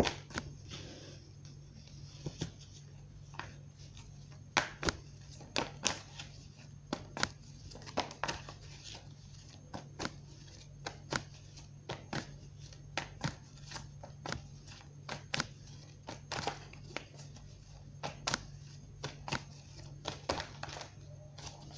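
A deck of tarot cards shuffled by hand, the cards snapping against each other in short, irregular clicks about one or two a second.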